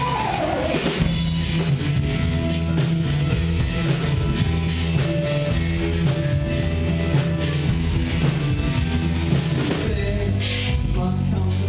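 Rock band playing live, electric guitar over bass and drum kit, opening with a high held guitar note that slides down.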